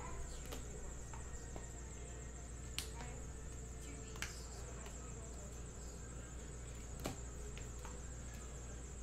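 Trading cards and clear plastic card holders being handled and set down on a table, with a few sharp clicks and taps, the clearest about 3, 4 and 7 seconds in. Under them runs a steady high-pitched hiss and a low hum.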